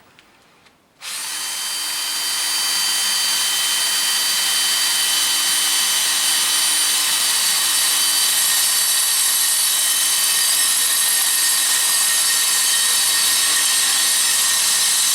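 Power drill starting about a second in and running steadily, drilling a 4 mm pilot hole through the tailgate's sheet metal; a steady high whine.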